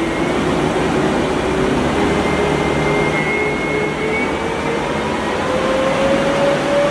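Two electric ducted fans of a large 3D-printed drone running on 48 volts: a steady rush of air with a motor whine that rises slowly in pitch as the fans spin up.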